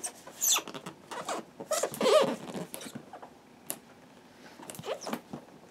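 Cardboard box being handled and turned over: scattered scrapes, rubs and light knocks of hands on cardboard, with a squeaky rub about two seconds in.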